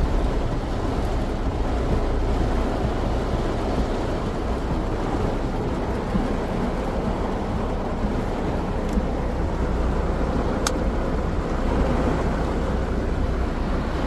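Heavy rain and a car driving on a waterlogged road: a steady rushing of rain and wet tyres over a low engine rumble.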